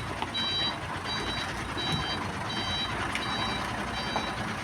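Dump truck's reversing alarm beeping evenly, about six beeps in a row, over the low running of its engine as it backs up.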